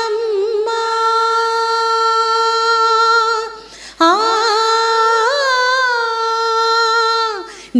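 Women singing a Telugu devotional song, holding two long notes of about three seconds each with a short break between them.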